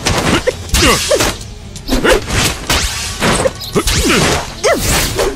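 Fight sound effects: several whooshes of swung blows and sharp thwacking hits, over dramatic background music.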